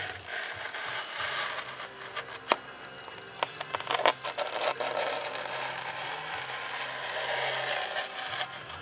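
Hobby knife blade drawn through paper-faced foam board: a continuous scratchy scraping, with a few sharp clicks, the loudest about two and a half and four seconds in.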